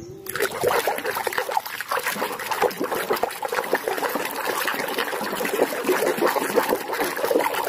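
Muddy water in a tub sloshing and splashing as a hand scrubs a toy animal under the surface. The agitation is rapid and continuous, starting a moment in.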